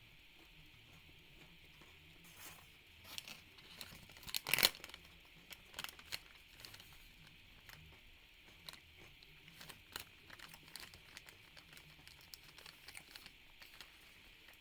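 Candy-bar wrapper crinkling as it is handled, in irregular crackles, with the loudest burst about four and a half seconds in.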